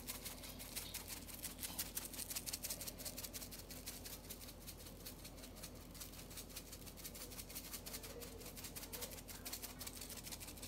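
Seasoning shaker shaken over raw pork ribs, the granules rattling in the bottle and pattering onto the meat in quick, continuous shakes.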